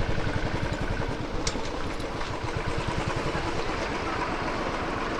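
Royal Enfield Classic 350's single-cylinder engine running steadily, with a rapid, even low pulsing and a haze of wind noise over it. A single sharp click comes about a second and a half in.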